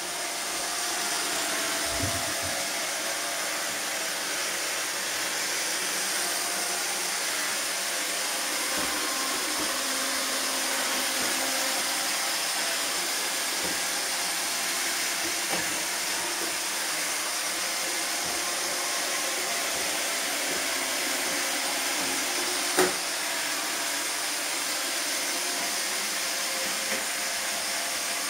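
iRobot Roomba robot vacuum running, a steady whirring hiss from its vacuum motor and brushes on a tiled floor, with one sharp knock late on.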